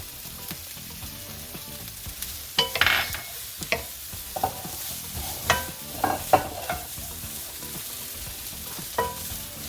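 Chopped carrot, onion and green pepper frying in a little oil with a faint steady sizzle, while a utensil stirs and tosses them, knocking and scraping against the pan about half a dozen times.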